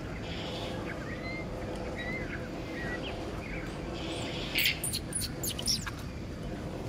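Baby long-tailed macaque giving a burst of sharp, high squeals about four and a half to six seconds in, the loudest sound here, with short high chirps scattered throughout over a steady low background hum.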